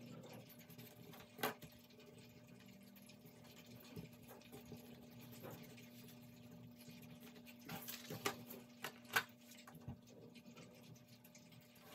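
Wax crayon scratching faintly on paper, with a few light clicks and taps as crayons are picked up and set down on the table, the sharpest about a second and a half in and a cluster around eight to nine seconds in.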